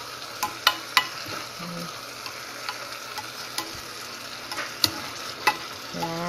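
Milkfish pieces and vegetables sizzling in oil in a pot before any water is added, a steady frying hiss with scattered sharp crackles.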